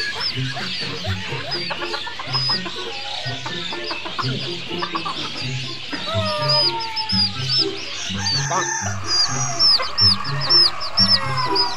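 Chickens clucking, with many short high-pitched chirps that grow denser and louder near the end.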